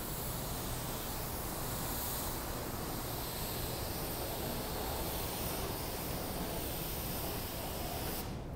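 Steady hiss of background noise with a low hum, unchanging throughout.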